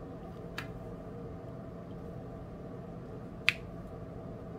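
Two short sharp plastic clicks, a faint one under a second in and a louder one near the end, from a diamond-painting drill pen and plastic rhinestone tray being handled, over a steady low hum.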